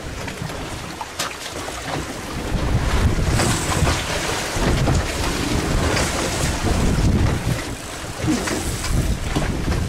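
Wind buffeting the microphone in low gusts over open sea, louder from about two and a half seconds in, with waves washing against the boat's hull.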